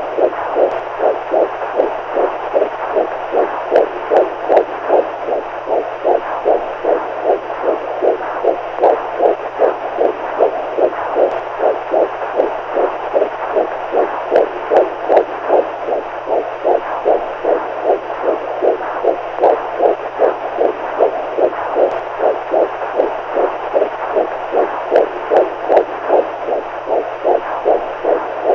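Recorded heartbeat sound used as a sleep aid, beating in a steady, even rhythm without pause, over a faint steady hum.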